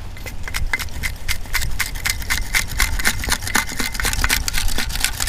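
Sand being dug and sifted in a beach scoop: a dense, irregular rattle of scraping grit and small clicks, over low wind rumble on the microphone.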